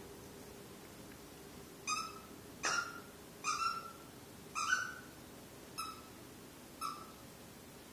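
Squeaker in a plush toy squeaking six times as a puppy bites and chews it, each squeak short and at much the same pitch, a few sliding up as they start.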